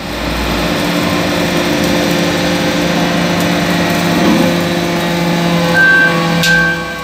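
Hydraulic metal-chip briquetting press running through its pressing cycle: a steady, loud hydraulic power-unit hum with a mechanical whir. Near the end a high-pitched tone comes in and out.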